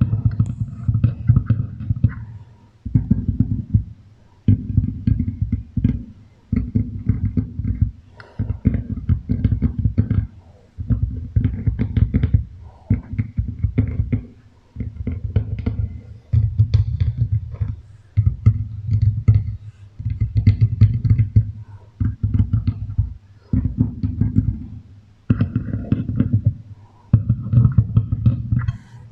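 Beeswax wrap crinkled and rubbed over a microphone with an echo effect, in rhythmic crackling strokes of about a second and a half, roughly one every two seconds, heavy and bass-laden.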